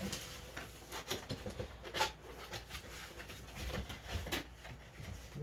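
Cardboard box being opened and its packaging handled: irregular rustling, scraping and light knocks.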